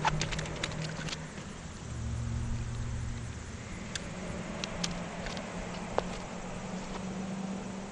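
A steady low motor hum, with a quick cluster of light clicks in the first second and a few single sharp ticks later, as a landing net and fishing line are handled.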